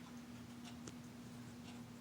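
Faint, irregular small clicks over a steady low electrical hum.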